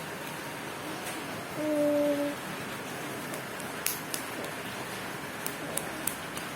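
A toddler's stridor: one pitched, crowing breath about one and a half seconds in, lasting under a second, over a steady hiss. It is the noisy breathing of bilateral vocal cord paralysis, where the cords cannot fully open. A few faint clicks come later.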